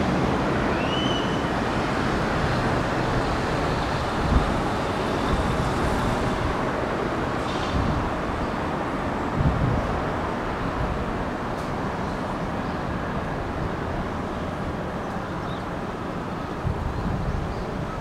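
Strong wind blowing steadily through the trees and carp streamers, with a few gusts buffeting the microphone as low rumbles.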